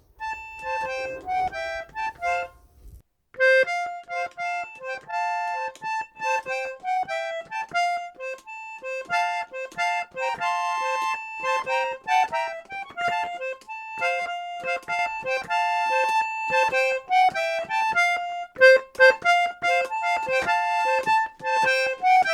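Instrumental music: a quick, bouncy melody of short notes, which breaks off for a moment about three seconds in and then carries on.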